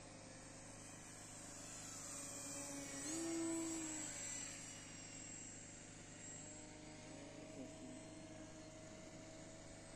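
Two electric-powered foam RC model Hawker Hurricane fighters flying, their motor and propeller whine faint and shifting in pitch. It grows louder about three seconds in as a model passes closer, then fades again.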